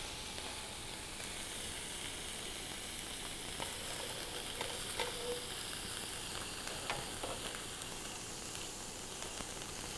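Marinated tofu cubes pan-frying in hot oil: a steady sizzle with a few faint pops.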